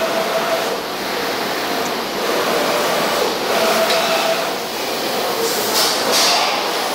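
Steady blowing machine noise, an even hiss with a faint whine that comes and goes, with a brief brighter hiss near the end.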